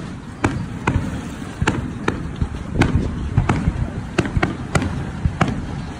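Aerial firework shells bursting in a quick, irregular series of sharp bangs, about a dozen in six seconds, over a low rumble.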